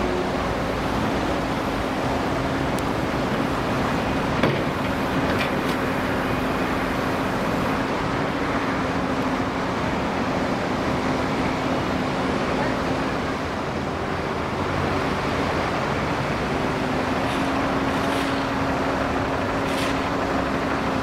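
Large jet airliner on the ground: a steady jet rush with a constant low hum, and one sharp click about four and a half seconds in.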